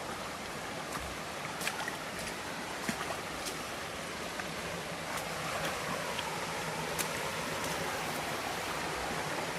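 Steady rush of a mountain creek's water flowing over rocks near a waterfall, with a few sharp clicks scattered through it.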